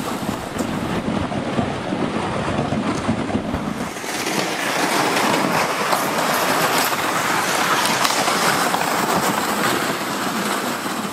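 Two pulk sleds hitched in tandem, dragged over snow with a steady scraping hiss while the person hauling them walks uphill, footsteps crunching in the snow. The scraping grows louder and brighter about four seconds in.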